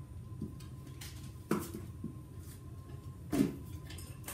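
Knocks and clunks from a steel .50 cal ammo can being handled and worked with a screwdriver during assembly: two louder knocks with a short ring, about a second and a half in and near the end, and a couple of fainter taps between.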